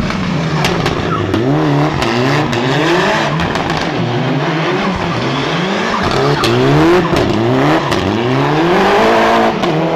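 Mitsubishi Lancer Evolution rally car's engine revving up and falling back over and over, about once a second, as the car slides and spins on asphalt with its tyres squealing.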